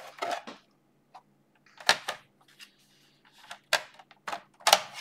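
Plastic bottom cover of an HP laptop being fitted back onto the case by hand: a string of sharp plastic clicks and knocks as it snaps into place, the loudest about two seconds in and twice near the end.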